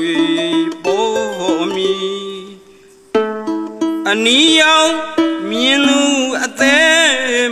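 Burmese saung (arched harp) plucked in a classical Burmese melody, with a man's voice singing in gliding, ornamented lines over the harp. There is a short lull in the playing about two and a half seconds in.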